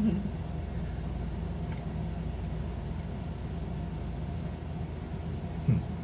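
Steady low mechanical hum. Near the end comes a brief low 'hmm' that falls in pitch.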